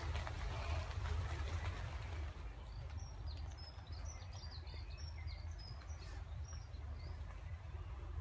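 Birds chirping in a quick run of short, high calls from about three seconds in, over a steady low rumble of outdoor noise.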